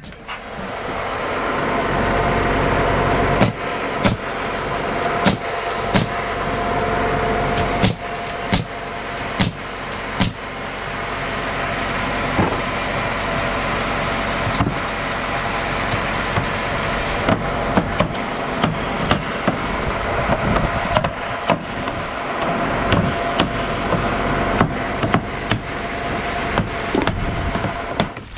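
Heavy machinery engine running steadily, with frequent sharp knocks and clanks over it.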